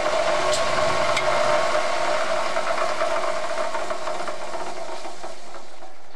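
A power tool's motor running steadily under load, with two sharp ticks about half a second and a second in, easing off near the end.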